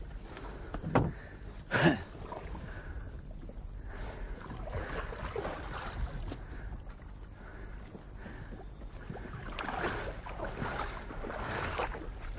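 Two knocks about a second apart as a man climbs over the side of a heavy wooden boat, then water splashing and sloshing as he steps out into shallow tidal water near the end.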